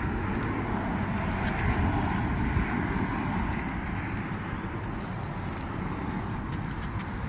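Road traffic going by: a steady rush of tyre and engine noise that swells about two seconds in and then slowly eases.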